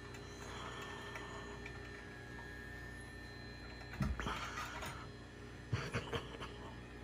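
Pet grooming dryer running steadily at a low, muffled level, with a towel rubbing against a puppy's fur and a few soft bumps, the loudest about four and six seconds in.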